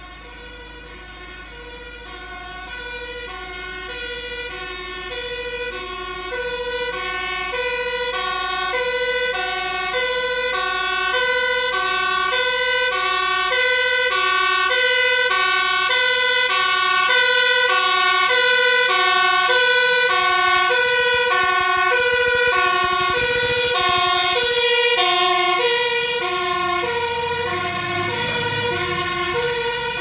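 Dutch fire engine's two-tone siren, alternating steadily between a high and a low note. It grows louder as the truck approaches and eases off slightly as it passes near the end, when its engine rumble can be heard as well.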